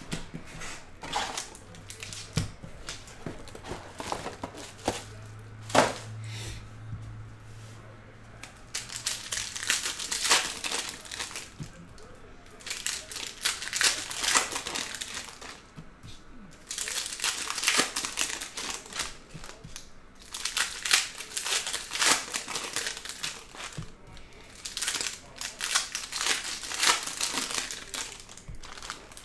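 Foil wrappers of trading-card packs crinkling in repeated bursts as the packs are torn open and handled.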